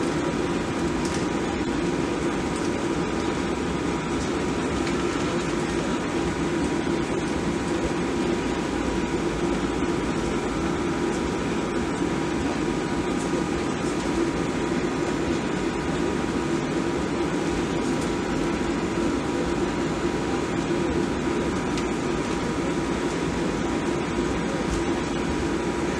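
Steady cabin noise inside a Boeing 737-700 airliner with its CFM56 turbofan engines running: an even drone with a faint steady whine that holds level throughout.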